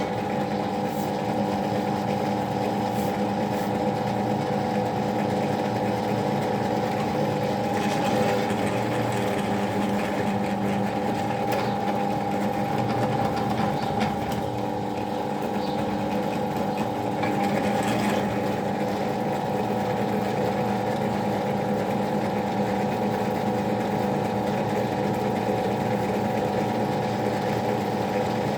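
An electric power tool's motor running steadily with an even hum, and a few short scratchier swells as material is worked against it.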